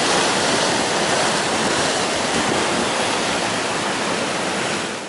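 Pacific Ocean surf washing against shoreline rocks: a steady, dense rush of water that fades out near the end.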